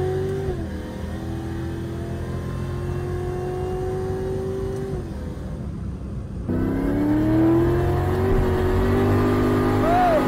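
Supercharged 4.6-litre V8 of a 2003 Mustang SVT Cobra accelerating hard, heard from inside the cabin. Its pitch climbs, dips at a gear change, then climbs again for several seconds and fades off. About two-thirds of the way in a louder run of climbing revs starts abruptly, and a man gives a brief exclamation near the end.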